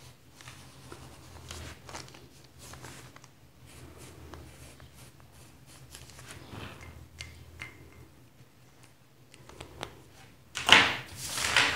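Pencil scratching in short, faint, irregular strokes on pattern paper, with a louder rustle near the end.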